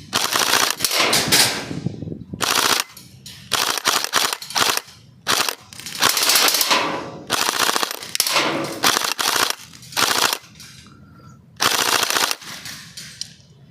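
Airsoft guns firing full-auto, in about nine bursts of rapid clicking shots, some short, some over a second long.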